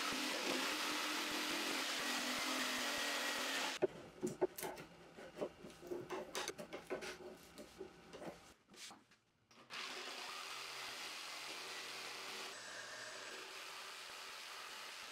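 Electric jigsaw sawing through a pine 2x4, a steady buzzing cut that stops about four seconds in. A chisel then paring the joint in a run of irregular scrapes and clicks, and from about ten seconds in the jigsaw cuts again, more quietly.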